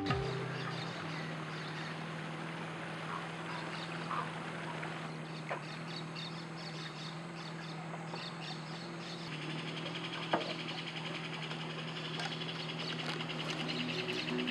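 Amazon rainforest ambience: a dense chorus of insects and frogs with scattered bird calls. A rapid pulsing trill joins about nine seconds in, and a couple of short sharp clicks stand out, the loudest about ten seconds in. A steady low hum runs underneath.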